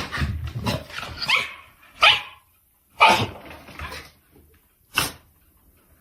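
A dog barking: three short, loud barks, the first two about a second apart and the third after a longer pause.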